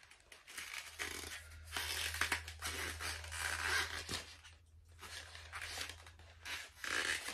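Bassinet parts being handled during assembly: irregular rustling, crinkling and scraping that comes and goes in clusters, with a low steady hum underneath for most of it.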